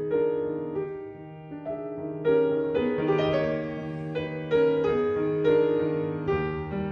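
Background music: a slow piano piece of melodic notes and chords, each note starting sharply and fading.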